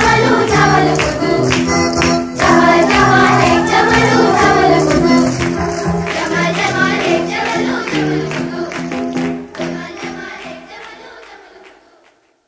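Background music with voices singing, fading out over the last few seconds.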